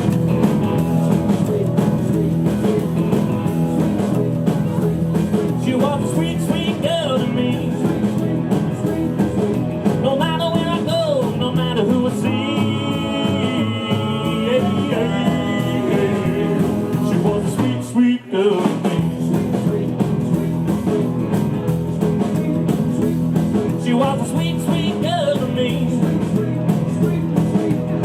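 A live rock and roll band playing 1950s Sun-style rockabilly, with a brief stop about eighteen seconds in before the band comes back in.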